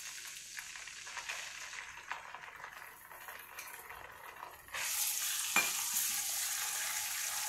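Hot oil sizzling in a frying pan as ginger-garlic paste is stirred into fried onions with a spatula. The sizzle is fainter at first and gets suddenly louder about two-thirds of the way through, with one light tap soon after.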